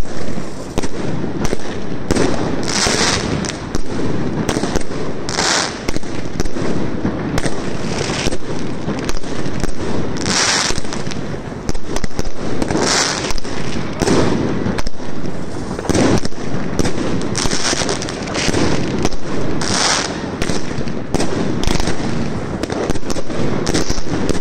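Many fireworks going off at once: a dense, unbroken run of bangs from aerial shells and firecrackers, with short hissing bursts every two or three seconds.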